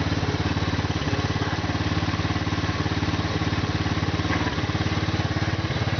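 Venom ATV-125F quad's 125 cc air-cooled single-cylinder engine idling steadily.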